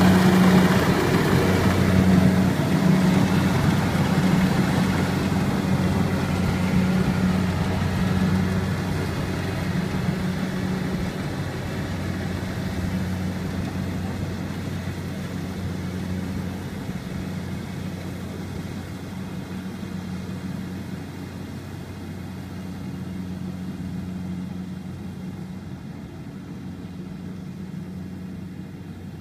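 Kubota crawler rice combine harvester's diesel engine running steadily at working speed as it harvests, growing steadily fainter as the machine moves away across the field.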